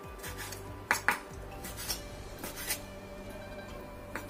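Large kitchen knife slicing raw chicken on a wooden cutting board: a few short knocks and scrapes of the blade on the wood, the sharpest about a second in. Quiet background music runs under it.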